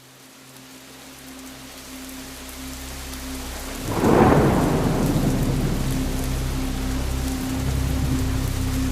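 Steady rain fading in, with a clap of thunder about four seconds in that rumbles on under the rain. A low steady hum runs beneath it.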